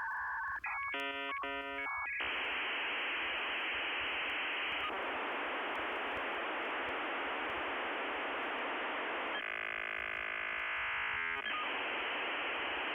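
Electronic telephone-line tones and hiss: a quick run of touch-tone dialing beeps about a second in, then a long steady hiss, broken near the end by about two seconds of many held tones at once.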